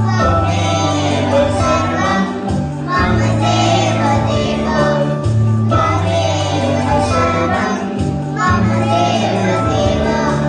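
A group of young children singing a song together, with instrumental accompaniment holding sustained low notes that change every second or two.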